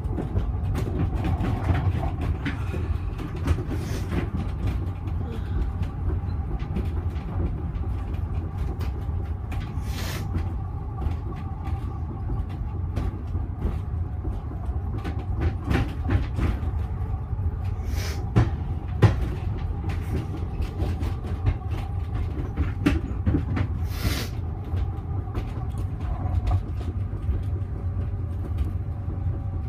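Heathrow ULTra pod, a small battery-electric rubber-tyred vehicle, running along its guideway, heard inside the cabin: a steady low rumble with a faint steady whine, broken by occasional knocks and rattles.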